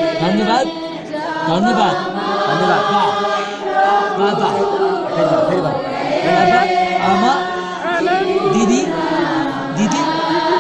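A congregation praying and chanting aloud all at once, many voices overlapping in a continuous, fervent drone with some held notes.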